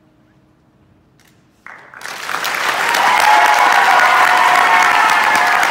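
After a quiet moment, audience applause breaks out suddenly about a second and a half in and quickly swells to loud, steady clapping.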